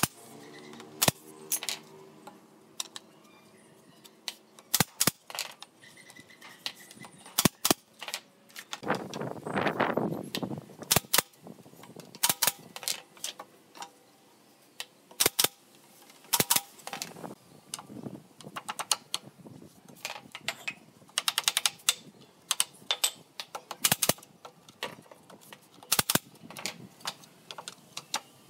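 Pneumatic brad nailer firing nails into pine pallet boards: single sharp shots at irregular intervals, some in quick pairs. A short scraping noise of wood being moved comes about nine seconds in.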